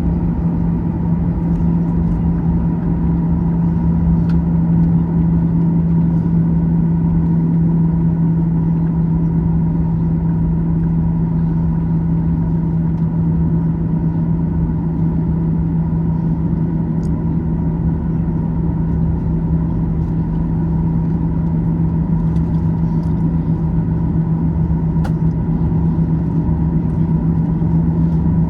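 Boeing 737-900ER's CFM56-7B jet engines at idle, heard from inside the cabin: a steady drone with a strong low hum, holding constant in pitch and loudness while the plane taxis or waits for takeoff.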